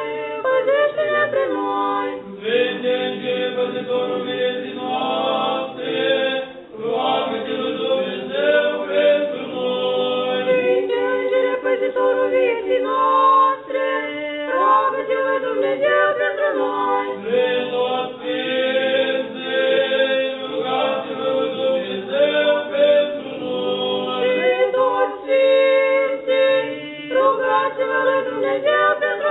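Unaccompanied choir singing Orthodox liturgical chant, continuous phrases with brief pauses between them.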